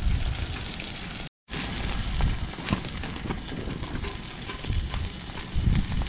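Pork sizzling on a steel griddle plate over a small wood stove, with the crackle of the burning wood and low rumbles of wind on the microphone. The sound drops out for a moment a little over a second in.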